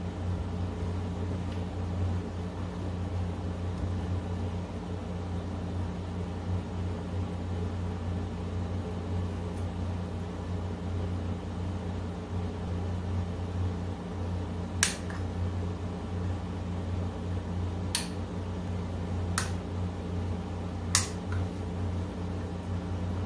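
A steady low machine hum throughout, with four sharp plastic clicks in the second half as panel-mount controller frames are pushed down notch by notch into the panel door.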